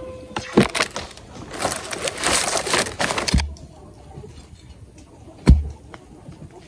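Three sharp knocks, each with a dull thud, a few seconds apart, and a couple of seconds of rustling noise between the first two.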